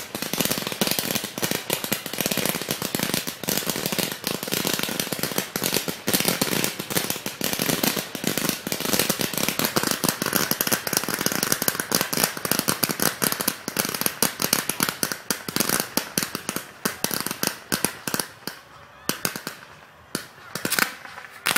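Fireworks crackling in a dense, rapid barrage of small bangs that thins to a few scattered reports near the end.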